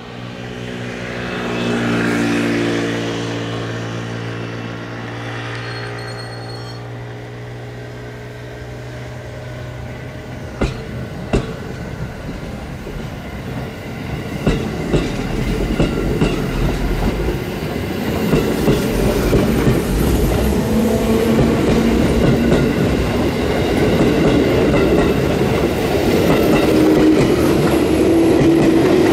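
JR 213 series electric train pulling away from a station and gathering speed. Its motors hum steadily at first; later the rolling noise grows, with wheels clicking over rail joints and the motor tone rising in pitch as it accelerates past.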